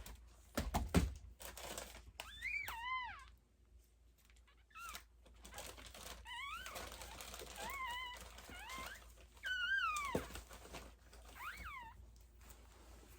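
Newborn Yorkshire terrier puppy crying in a series of short, high-pitched squeals that rise and fall in pitch, about half a dozen of them. There is a dull thump about a second in.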